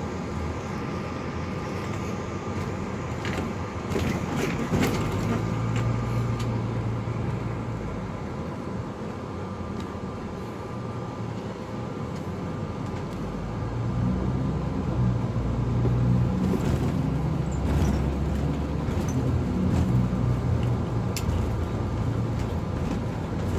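Ford shuttle bus heard from inside the cabin while driving: steady engine and road noise, with the engine hum growing louder about five seconds in and again from about halfway through. A few clicks and rattles come near the start.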